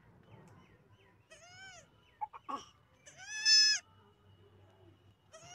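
Baby goat (kid) bleating: a short high bleat, then a louder, longer bleat about three seconds in, and another starting near the end. Each bleat rises slightly in pitch and then falls, with a few brief sharp sounds between the first two.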